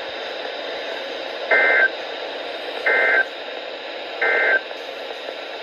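Three short Emergency Alert System end-of-message data bursts from a NOAA Weather Radio broadcast, each about a third of a second long with about a second between them, over steady radio hiss. The three bursts mark the end of the alert.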